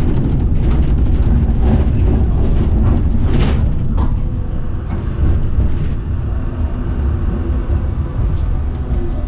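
A1 class tram rumbling along its rails, heard from inside the cab. Its wheels click and clunk over junction trackwork for the first few seconds, then it runs more smoothly.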